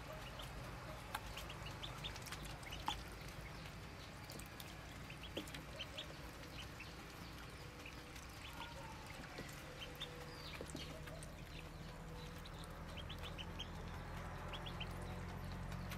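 Muscovy ducklings peeping: many short, high peeps scattered through, over a low steady hum that grows louder near the end.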